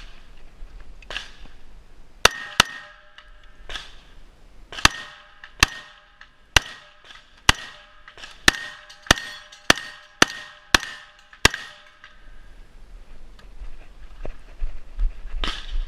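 Firearm shots during a timed shooting-match stage: about a dozen sharp, loud gunshots at an irregular pace, spread over roughly 9 seconds. A ringing tone lingers after many of the shots.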